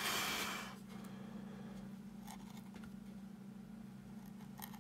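A hand carving tool slicing into wood in one short scraping cut at the start, followed by a few faint taps, over a steady low hum.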